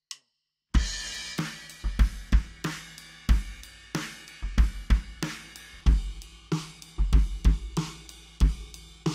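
A recorded live drum kit plays a groove with kick, snare, hi-hats and cymbals. A synth bassline and chords sound underneath. The part starts about a second in, just after a last count-in click.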